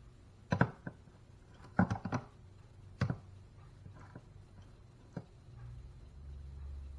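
A series of sharp knocks and clicks as a smoke detector is handled to set it off, then a low steady hum that begins about five and a half seconds in.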